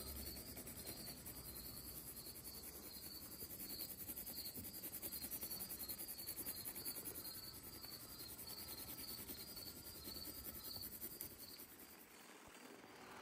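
Graphite pencil scratching on paper in quick shading strokes, faint, over a steady high-pitched chirping that repeats a few times a second.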